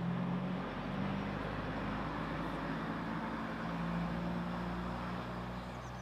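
A small car driving past close by, its engine and tyre noise swelling at the start and fading away after several seconds, over a low steady diesel hum from the idling SM42 shunting locomotive.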